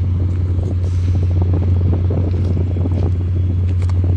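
Steady low hum and rumble of an idling diesel freight locomotive, unchanging throughout.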